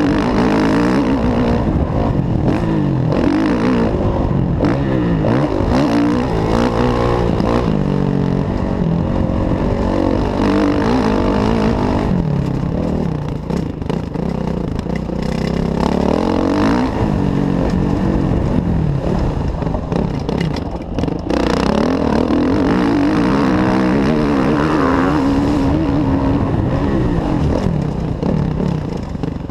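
Kawasaki KX450F motocross bike's single-cylinder four-stroke engine under hard riding, its pitch rising and falling again and again as the throttle is opened and shifted through. The throttle is rolled off briefly a few times, about halfway through, about two-thirds of the way and near the end.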